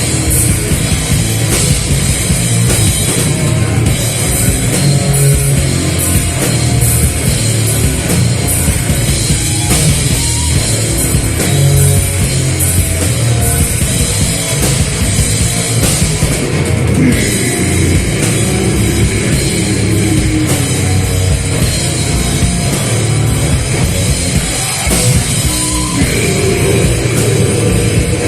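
Live metal band playing loud with a full drum kit, heavy rhythmic drumming under a dense wall of instruments.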